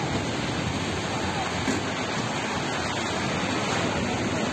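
Steady, loud rushing roar of a multi-storey apartment building collapsing during an earthquake, with people shouting faintly.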